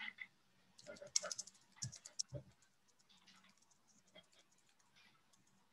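Faint computer keyboard typing: a quick run of clicks about a second in, then a few scattered taps.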